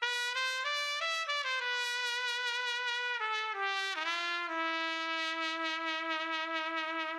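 Background music: a solo brass-like melody of short notes that climb, then step and slide downward, settling about halfway through on one long held note.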